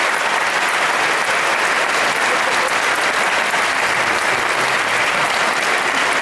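Large audience applauding, a steady, dense clapping.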